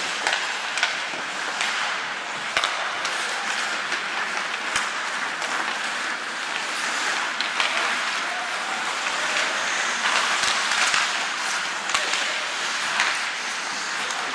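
Ice hockey play on a rink: a steady hiss of skates scraping the ice with scattered sharp clacks of sticks and puck.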